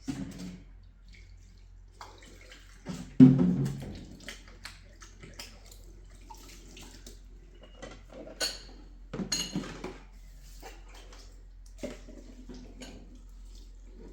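Irregular knocks and clatters with splashing water, the loudest knock a little after three seconds, over a steady low hum.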